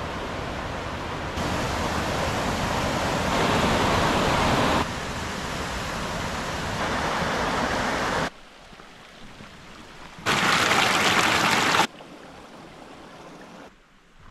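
Rushing water of a rocky mountain stream and its cascades, a steady hiss that jumps louder or quieter at each cut between short clips; it is loudest for a couple of seconds about ten seconds in, with quieter stretches around it.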